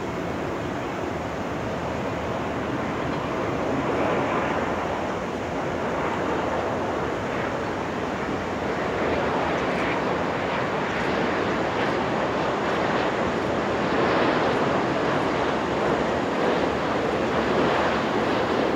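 Airbus A350-900 on final approach, its Rolls-Royce Trent XWB engines a steady jet rush that grows slowly louder as the aircraft nears, with wind on the microphone.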